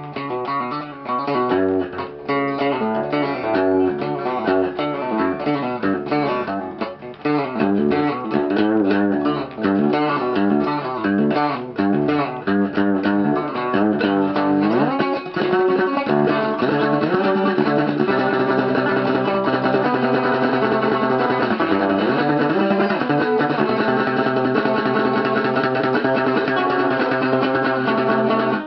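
Instrumental guitar music: quick plucked notes, a note sliding up in pitch about halfway through, then steadier held notes.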